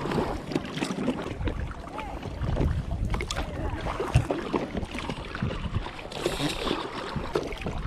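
Lake water sloshing and splashing around an inflatable pontoon boat as it is rowed with oars, with wind rumbling on the microphone.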